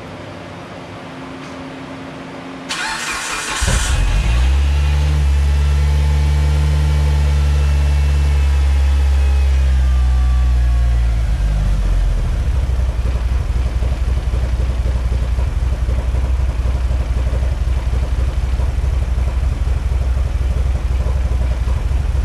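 A Mitsubishi Evo 8's turbocharged 4G63 four-cylinder is cranked by the starter and catches about four seconds in. It runs at a steady fast idle that eases down, then from about twelve seconds the idle turns choppy and popping. The owner says this cold-start popping lasts a minute or two, and he suspects the tune.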